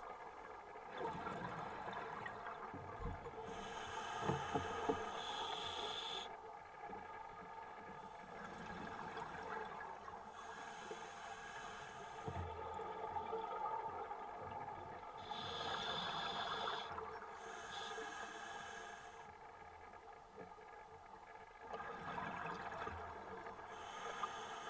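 Scuba regulator breathing heard underwater. Stretches of hiss lasting a few seconds alternate with quieter bubbling gaps, over a steady underwater murmur.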